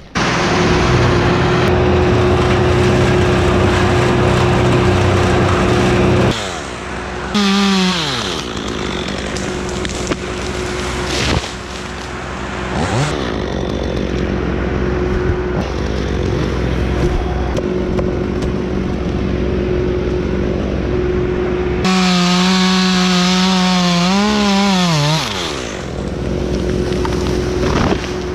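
Chainsaw running at full throttle, cutting a dead pine trunk for the first six seconds or so, then revved briefly and let back down. A second full-throttle run starts about 22 seconds in, wavers and winds down near 25 seconds.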